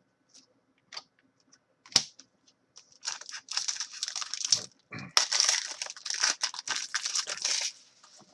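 A plastic-foil trading card pack crinkling and tearing as it is handled and opened, a dense crackle lasting about five seconds. A few sharp clicks come before it, the loudest about two seconds in.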